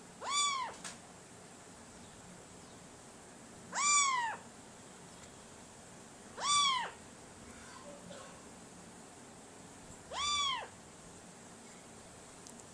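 Four meow-like calls, each a single cry of about half a second that rises and then falls in pitch, spaced a few seconds apart.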